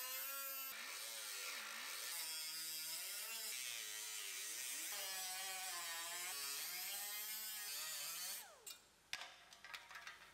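Air-powered cut-off wheel slicing through automotive sheet metal: a steady whine whose pitch wavers as the wheel bites into the panel and eases off. It stops about eight seconds in, leaving a few faint clicks.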